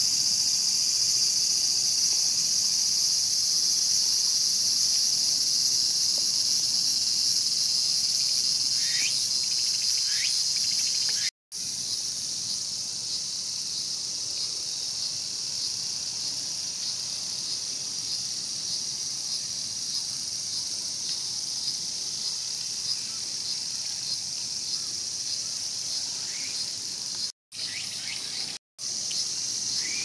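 Steady high-pitched buzzing of a cicada chorus. It cuts out briefly once about a third of the way in and twice near the end. A few faint, short rising chirps sound over it.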